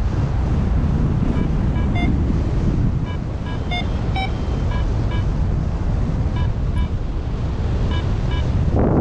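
Wind rushing over the microphone in flight. Over it comes a paraglider's variometer giving short electronic beeps, mostly in quick pairs, the beeping that signals the glider is climbing. A louder burst of wind noise comes near the end.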